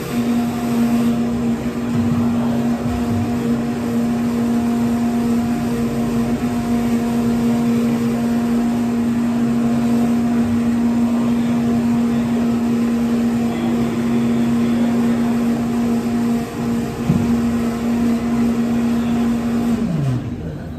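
A steady mechanical hum, one constant tone over a running noise, like a motor or vehicle running. Near the end the tone quickly drops in pitch and dies away as the machine winds down.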